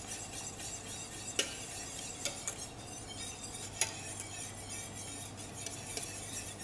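Wire whisk stirring a thin liquid in a stainless steel saucepan: a steady swishing, with several sharp clinks of the whisk against the pan.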